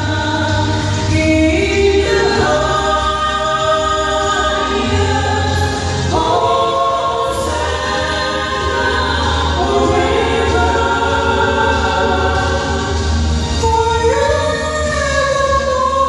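A mixed vocal trio, one man and two women, singing a gospel song in held, sustained notes through a microphone system, over a steady low accompaniment.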